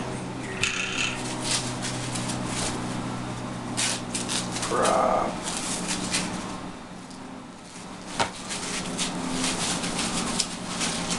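Plastic packaging wrap crinkling and rustling as it is pulled off the airplane's small parts, in irregular crackles, over a steady low hum.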